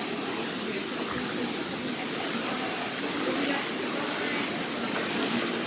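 Steady rushing of the Alcantara river's water.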